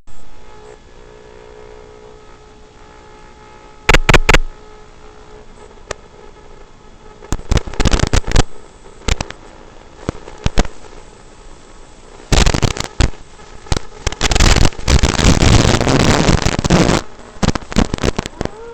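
Harsh, distorted audio: loud crackling bursts of noise that clip, one long stretch of them in the second half, over a faint steady hum carrying a few tones. This is the poor, broken-up sound track of a micro FPV drone flight recording.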